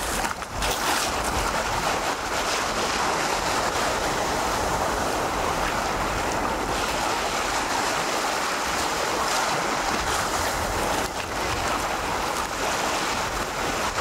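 Small waves of the Baltic Sea lapping and washing up a sandy shore at the water's edge, a steady wash of surf with no single breaker standing out.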